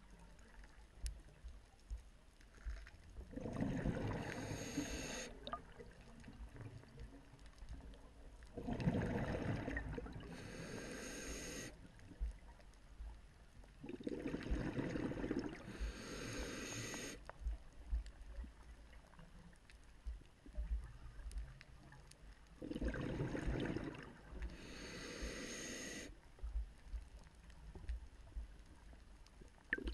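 Scuba diver's regulator exhaust heard underwater: four long rushes of exhaled bubbles, one about every six seconds, with quieter stretches between breaths.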